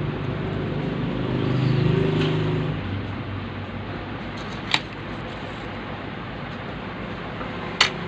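Steady background hum with two short sharp clicks, one a little past halfway and one near the end.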